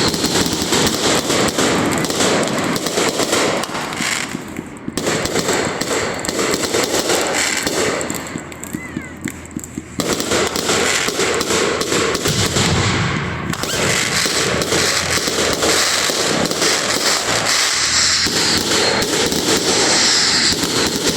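A large consumer firework cake firing continuously, a dense barrage of rapid bangs and crackling with two brief lulls, one about four seconds in and another around eight to ten seconds in.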